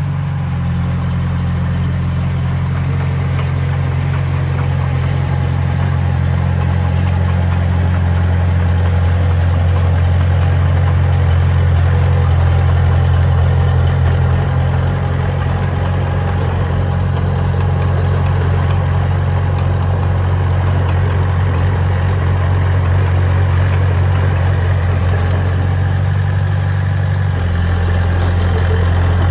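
Diesel engine of heavy construction machinery running steadily with a low hum; its note changes slightly near the end.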